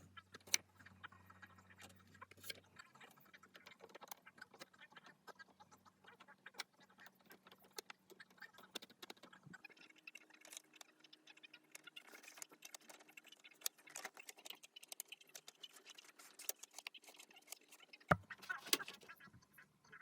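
Faint, irregular clicks and light taps from small hard objects being handled, with one louder knock near the end.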